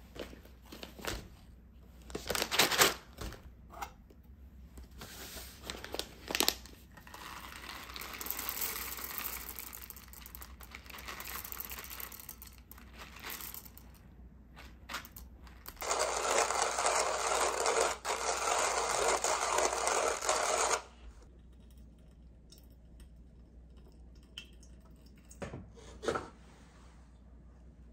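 Paper coffee bag crinkling and whole coffee beans poured into a wooden hand-crank coffee grinder. The grinder is then cranked, crunching the beans for about five seconds with a brief break. Near the end comes a small wooden knock as the grinder's drawer of ground coffee is pulled out.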